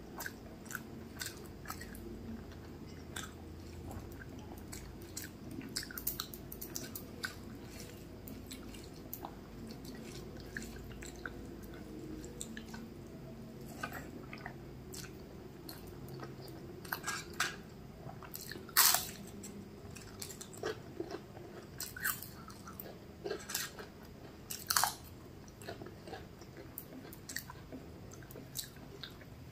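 Close-miked eating sounds of rice and curry eaten by hand: chewing, with many small wet mouth clicks and smacks. Two louder sharp clicks come in the second half.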